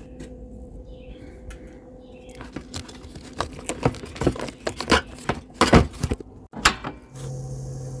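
Clicks and knocks of hands handling a plastic two-slot toaster loaded with hot dogs, the sharpest knocks coming about six seconds in. Near the end a steady hum with hiss starts up.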